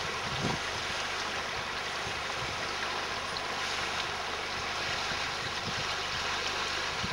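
Steady outdoor background hiss with a low rumble underneath, even throughout, with no distinct events.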